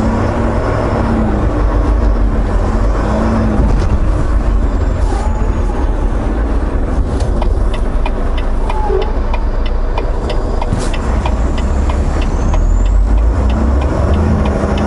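Semi truck's diesel engine and cab rumble as the truck pulls away and turns. In the middle, a regular ticking about twice a second for several seconds, the turn signal flashing.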